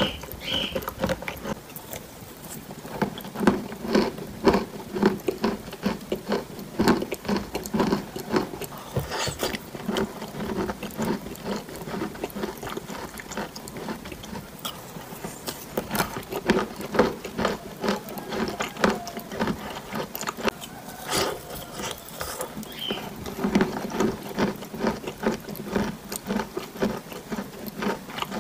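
Close-miked eating sounds from a spoonful of soft, sticky paste: wet lip smacks, tongue clicks and the spoon against the lips. These come as a quick, irregular crackle of many small clicks.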